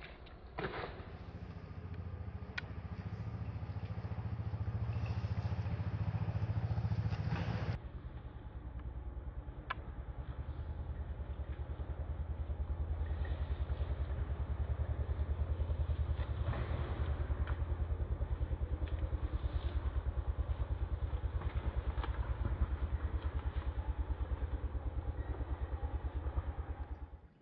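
Steady low engine rumble with a fine rapid pulse and a few faint clicks. It changes character abruptly about eight seconds in.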